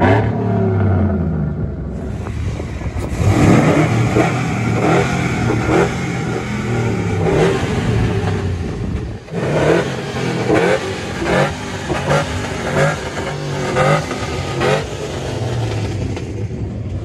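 Chevrolet pickup truck engines revving and accelerating, the pitch rising and falling several times.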